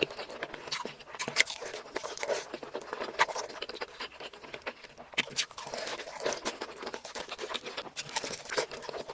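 A person eating close to the microphone: irregular bites and chewing with wet mouth sounds, a string of short sharp clicks and bursts at an uneven pace.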